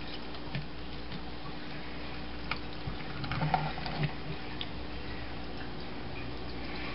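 A knife cutting into a pink salmon's head in a stainless steel sink: scattered light ticks and wet squishing, busiest about three to four seconds in, over a steady low hum.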